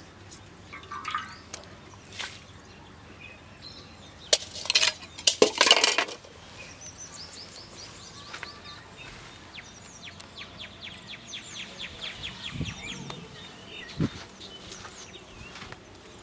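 A bird calling outdoors in a long series of quick, evenly repeated high chirps, starting about seven seconds in. Before that, a few loud short bursts of noise come about four to six seconds in, and a single thump comes near the end.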